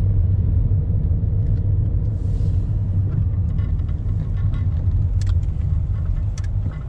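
Car driving, a steady low rumble of road and engine noise heard from inside the cabin, with a few faint clicks.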